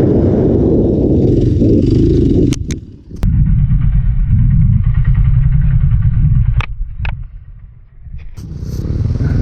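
Off-road motorcycle engine running while riding, with heavy rumble. The sound drops away sharply twice, briefly about two and a half seconds in and for longer near the end, with a few sharp clicks around the drops.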